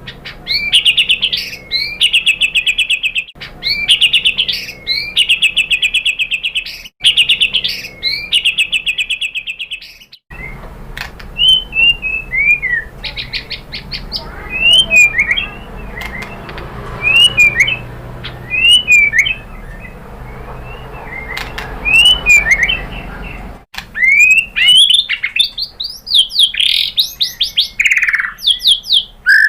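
White-rumped shama singing: three rapid trilling phrases, then separate short whistled slurs and chirps, and near the end a fast run of rising sweeps.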